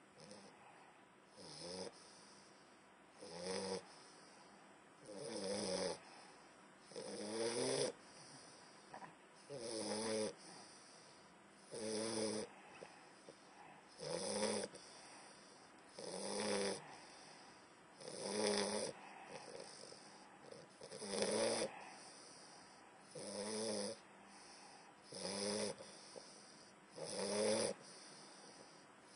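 English bulldog snoring as it drops into deep sleep. The snores come in a steady rhythm, about one every two seconds, with quieter breaths between.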